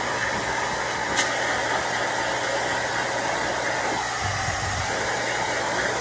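Neakasa F1 pet hair dryer blowing steadily: a rush of air over a low motor hum, drying a dog's wet belly fur.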